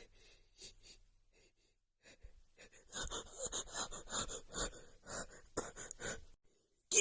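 A woman's quick gasping breaths, about five a second for roughly three seconds, as a sneeze builds, after faint breathing; the sneeze bursts out loudly right at the end.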